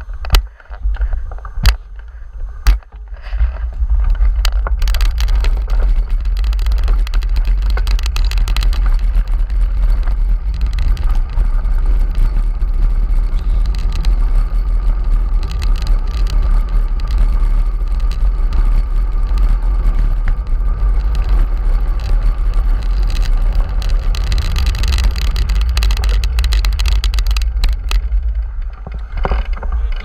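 Heavy wind buffeting on the microphone of a handlebar-mounted camera on a moving bicycle, with road and tyre hiss. It is preceded by a few sharp clicks in the first three seconds, builds about four seconds in and eases near the end.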